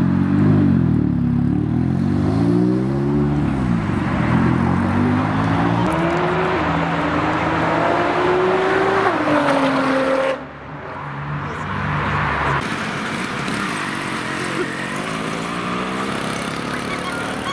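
Tuner car engines revving and accelerating away. The pitch first rises and falls several times, then climbs steadily through a gear change. The sound drops off suddenly about ten seconds in, and a fainter engine then rises in pitch.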